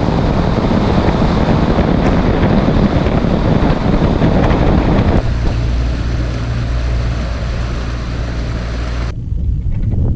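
Bass boat running across the water under outboard power, with heavy wind rush on the microphone. About five seconds in the rushing eases and a steady low engine drone comes through, and the loud noise cuts off suddenly about a second before the end.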